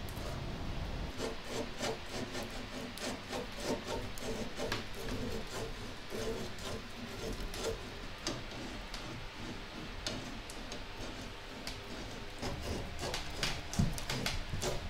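Irregular rubbing and scraping of tools on the brass of a trumpet bell during dent work, with small clicks throughout and a louder knock near the end.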